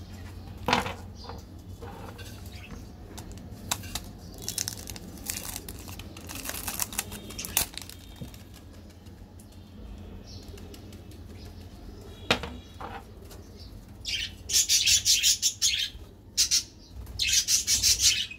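Birds chirp faintly while a few light taps sound on a tabletop. In the last few seconds come loud bursts of rapid rustling, like wings flapping or plastic crinkling.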